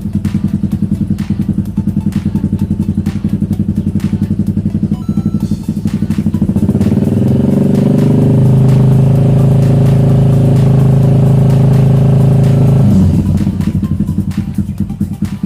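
Motorcycle engine through a Proliner TR-1 aftermarket exhaust with the dB killer removed, idling with a steady pulsing beat. About six seconds in it is revved up, held high for several seconds, then dropped back to idle near the end.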